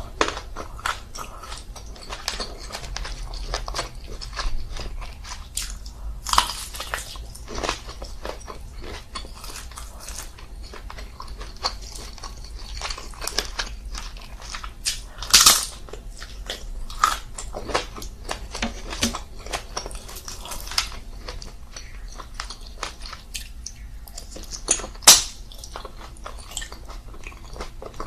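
Close-miked biting and chewing of shell-on seafood: a dense run of crunches and small cracks, with louder cracks about fifteen and twenty-five seconds in.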